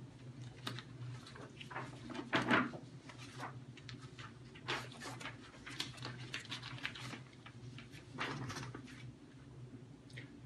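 Sheets of paper being handled and shuffled on a wooden desk: an irregular run of short rustles and light taps, loudest about two and a half seconds in, over a steady low hum.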